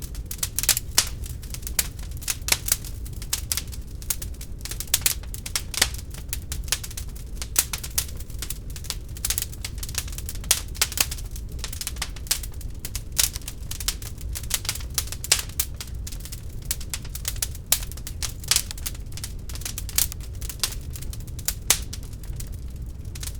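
Wood fire burning in a fireplace: a steady low rumble of the flames with frequent, irregular sharp crackles and pops as the logs burn.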